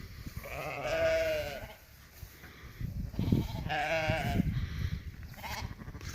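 Sheep bleating twice, each a wavering, quavering call lasting a second or so, the second beginning about three seconds in.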